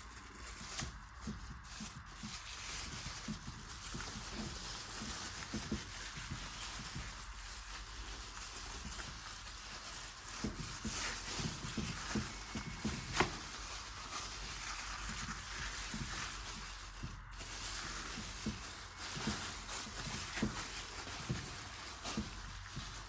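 Turkey drumstick steak sizzling over hot charcoal: a steady hiss with scattered small crackles and pops, one sharper pop about halfway through.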